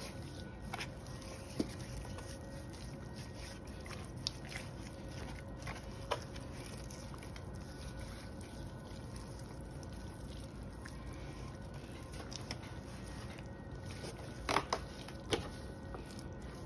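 Hands rubbing mustard and dry seasoning into raw boneless pork shoulder, a faint handling of wet meat over a steady background noise, with a few short clicks, several of them close together near the end.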